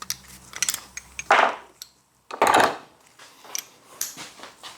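Metal hand tools clinking and clattering as Allen keys are picked through and tried, with two longer, louder rattles about a second and a half and two and a half seconds in.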